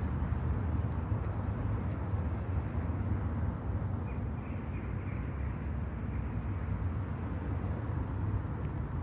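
Steady, low-rumbling outdoor background noise in a town, with a few faint high chirps about four seconds in.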